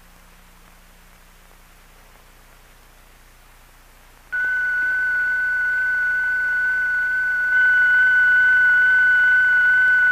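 Steady high-pitched tone from a transistor circuit powered by a makeshift battery of moist blotting paper wrapped around a coin, heard through a telephone receiver. It comes in suddenly about four seconds in, over faint film hiss, and gets louder about three seconds later.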